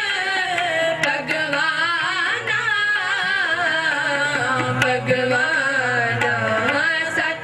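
Sikh gurbani kirtan: voices singing a winding melody over harmonium accompaniment, with tabla strokes.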